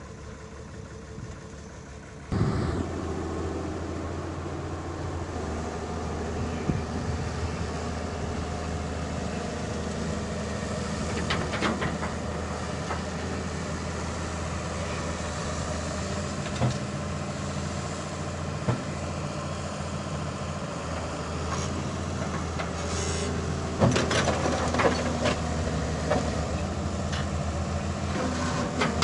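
A large vehicle engine starts up about two seconds in and then runs steadily at idle, with a few clanks and knocks over it.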